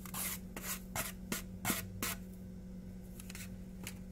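Steel spoon scraping flour off a paper plate into a nonstick pan: a quick run of short scrapes and taps in the first two seconds, then a few lighter ones.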